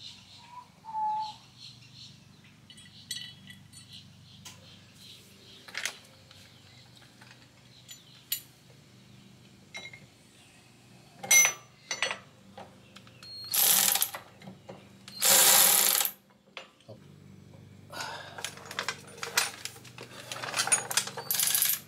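Hand tools and bolts clinking against metal motorcycle parts: scattered clicks and taps, with several short loud spells of rapid ratcheting or rattling, the longest near the end.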